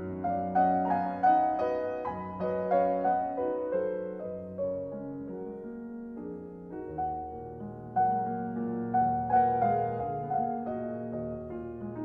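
Soft background piano music: single notes and chords struck and left to ring and fade, in a gentle slow melody.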